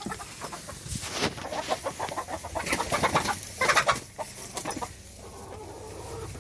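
Chickens clucking amid a busy crackle of rustling and scratching, easing off near the end.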